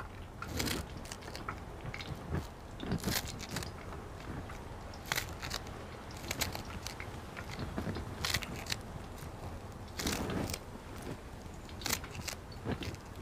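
Knife cutting through crisp spring onions by hand: irregular crunches and snaps, a few a second, with pauses between cuts.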